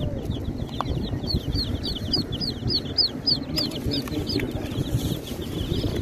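Baby chicks peeping: a quick run of short, high chirps that fall in pitch, about three a second, strongest in the middle, over a low background rumble.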